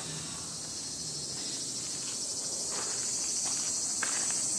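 A steady, high-pitched chorus of insects droning without pause. From about halfway through come a few soft brushing sounds as a hand strokes a cat's fur.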